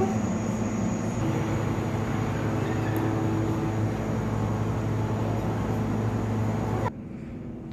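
Steady mechanical hum with a rushing noise, like building ventilation or exhibit machinery, cutting off suddenly near the end.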